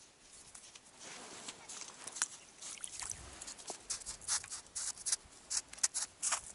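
A dog's paws crunching on crusted spring snow as it trots up, an irregular run of crisp steps that grows louder as it comes close.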